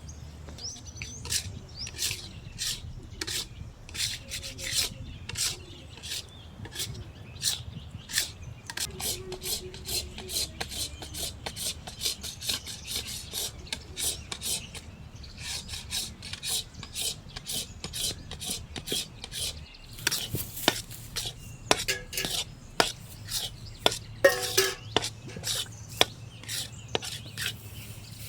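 A spatula scraping and stirring in a pan, one to two strokes a second, quicker and denser in the last third: halwa being stirred as it cooks.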